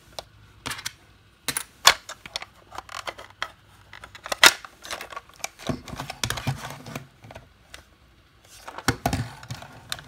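Hard plastic parts of a small Hello Kitty toy refrigerator being handled: irregular clicks, taps and knocks from its doors, drawers and loose pieces. Two sharper knocks land about two seconds and four and a half seconds in.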